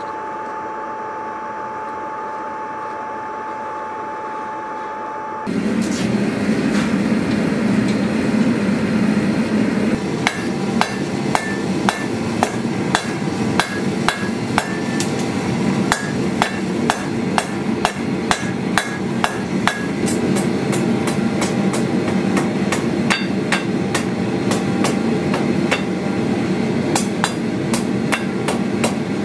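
Hand hammer striking a red-hot steel bar on an anvil: a fast, even series of ringing blows that starts about ten seconds in. Underneath is a steady rushing noise that comes in suddenly about five seconds in, replacing a quieter steady hum with a single tone.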